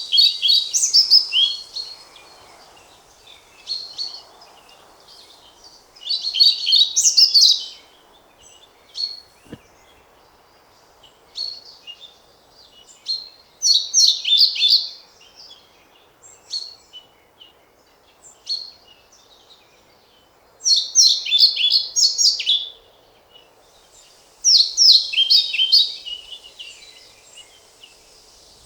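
European pied flycatcher singing: short, rapid phrases of high, sweet notes lasting a second or two, repeated every five to seven seconds, with single short notes in between.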